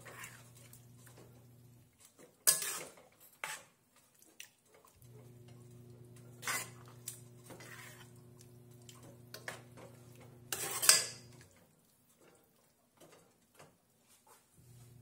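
A stirring utensil scraping and knocking against a nonstick pan as shredded beef in sauce is mixed, in a handful of separate strokes. The loudest stroke comes near the end.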